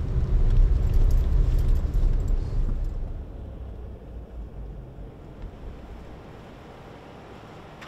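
A motor vehicle's low rumble of engine and road noise, loud for about three seconds, then dropping to a quiet, steady low hum.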